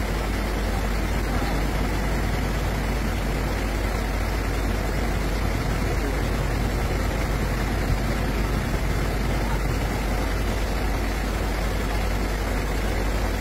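Heavy engine of a truck-mounted recovery crane running steadily under the lift.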